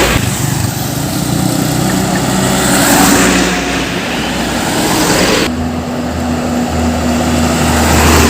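Heavy diesel trucks passing on a road, engine and tyre noise together. About five seconds in, the higher road noise falls away and a deeper, steady engine drone takes over.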